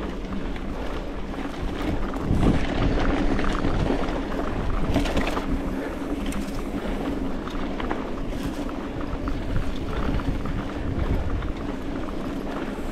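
Commencal Meta TR 29 mountain bike riding a dirt singletrack: steady wind noise on the microphone over tyre noise on dirt, with frequent clattering knocks from the bike over bumps, louder for a couple of seconds early in the ride.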